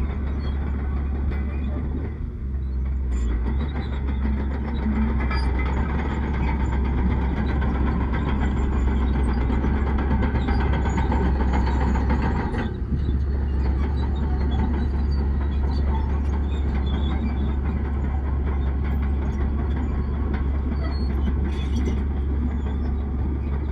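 Bulldozer working, its heavy diesel engine running under load with a steady low rumble and mechanical clatter. The sound shifts abruptly twice, about two and a half seconds in and again around thirteen seconds.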